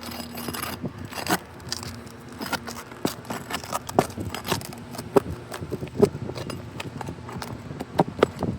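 Irregular scraping and sharp clicks and knocks of a metal pry tool working under asphalt roof shingles, breaking the adhesive seal and loosening the nails, with a brief metallic ring on a few strikes.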